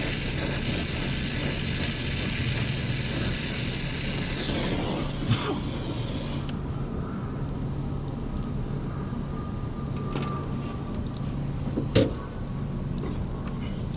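Brazing torch flame hissing steadily while the replacement TXV is brazed into the line, then shut off about six and a half seconds in. A steady low hum runs underneath, and there is a sharp knock about twelve seconds in.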